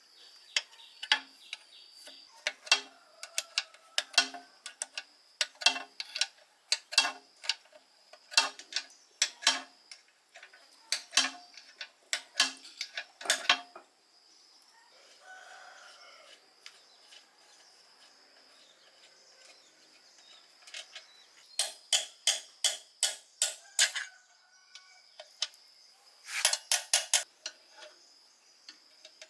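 Repeated sharp knocks, mostly in pairs about every second and a half, later in quicker runs of several taps, over a steady high insect whine. A rooster crows once, faintly, about halfway through.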